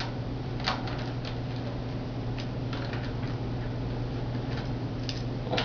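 Scattered light clicks and ticks of a wrench working on a bicycle's front axle nuts as they are tightened, about eight spread unevenly over a few seconds, over a steady low hum.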